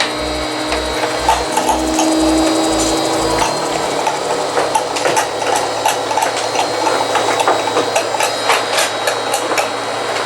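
Haier inverter AC outdoor unit running under the repaired PCB: a steady mechanical rattle with rapid clicks, and a low throb pulsing about two or three times a second that stops about a third of the way through as the compressor ramps up.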